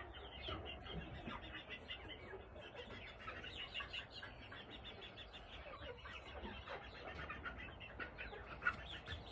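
Appenzeller Spitzhauben chicken giving a quiet, rapid stream of soft clucks and trills, the contented sound of a happy chicken being stroked. One sharper click comes near the end.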